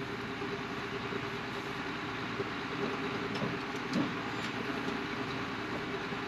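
Combine harvester running: a steady machine drone with a constant low hum.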